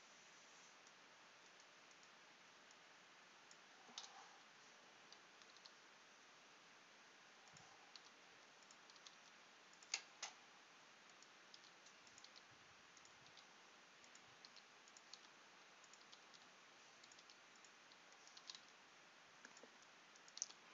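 Faint computer keyboard taps and mouse clicks, scattered and irregular over a low steady hiss, with a sharper pair of clicks about halfway through.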